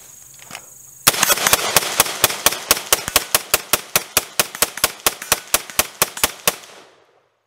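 A 3D-printed AR-15 rifle fired rapidly in semi-auto, a mag dump of about 25 rounds at roughly four to five shots a second. It starts about a second in and stops short near the end when the magazine runs empty.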